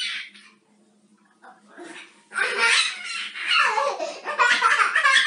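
A young child's high-pitched squealing and laughing: a short cry right at the start, a pause of about two seconds, then a longer run of squeals that slide down in pitch.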